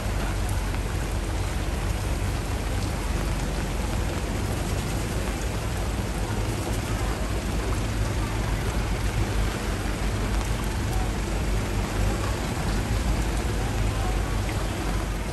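Steady outdoor sound of a flooded street: a continuous rushing noise with a heavy low rumble underneath and no distinct single events.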